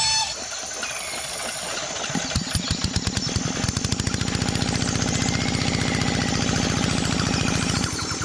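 A small engine starting about two seconds in, then running with a rapid, even putter.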